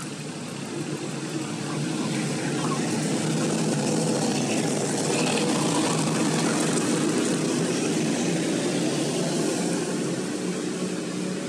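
Steady engine noise that swells about a second and a half in and then holds.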